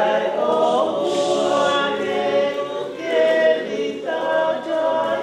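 Choir singing unaccompanied, several voices holding long notes together, with a brief dip about three seconds in.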